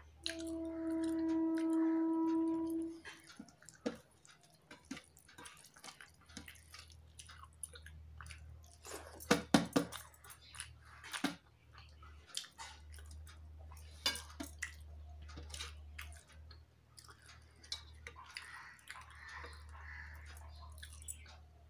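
Eating by hand from a steel plate: fingers mixing rice, scattered clicks and light scrapes on the metal, and chewing. Near the start, a steady held tone lasting about three seconds is the loudest sound.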